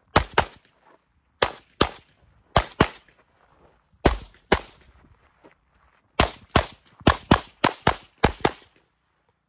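Rapid pistol shots in a competition stage: sixteen sharp cracks fired as eight quick pairs, two shots per target, with short pauses between the pairs and a faster string of four pairs near the end.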